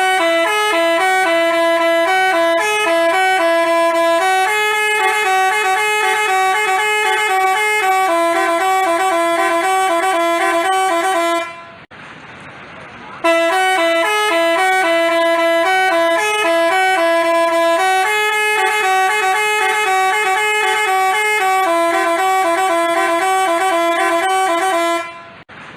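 Bus telolet horn, a basuri-type multi-trumpet horn, playing a melody of held and stepping notes. The same tune of about eleven seconds sounds twice, with a short break between.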